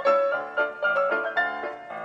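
Background music: piano or electric keyboard playing a quick run of short, bouncy notes.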